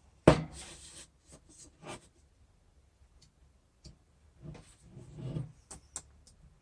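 Workbench handling noises: a sharp knock just after the start, then scattered light clicks and soft rubbing as parts and tools are handled.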